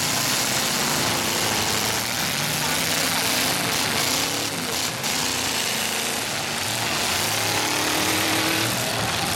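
Several demolition derby cars' engines running and revving at once, pitch rising and falling, over a dense haze of noise and crowd voices.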